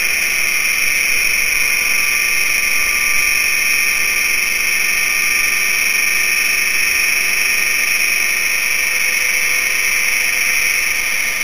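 A small hard-disk-drive-based SSG pulse motor running at speed, its rotor and pulsed coil making a steady high-pitched whine.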